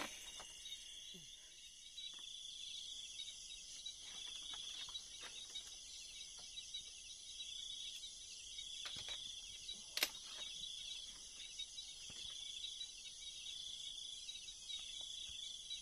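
Night insects, crickets among them, trilling steadily in a continuous high-pitched chorus, with a few faint clicks, the clearest about ten seconds in.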